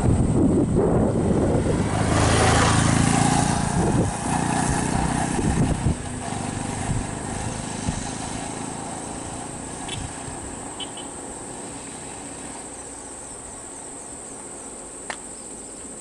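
A motor vehicle's engine running close by, loud for about the first six seconds and then fading away, over a steady high chirring of crickets that is left on its own for the rest. A single sharp click near the end.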